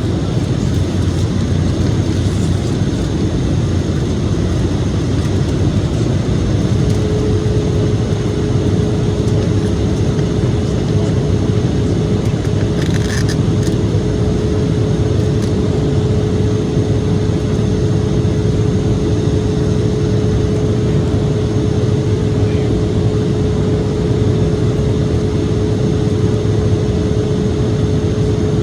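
Steady jet-airliner cabin noise inside an Embraer E-175 in flight: the rush of air and the GE CF34 turbofans. A steady hum joins in about seven seconds in and holds, with a brief higher sound around halfway.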